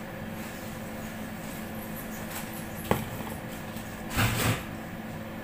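Steady mechanical hum of kitchen machinery. A sharp click comes about three seconds in, and about a second later there is a short double clatter as a stainless-steel bowl is picked up.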